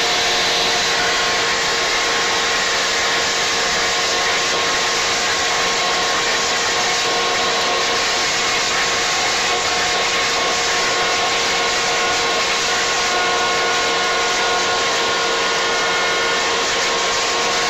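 Leaf blower running steadily at full power: a loud, even whine with several steady tones over the rush of air.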